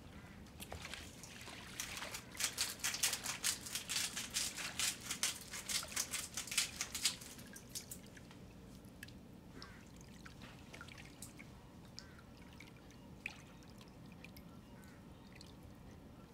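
Something poured from a small handheld container into a bathtub of water: a dense trickling, spattering pour lasting about six seconds, followed by faint scattered drips and ticks.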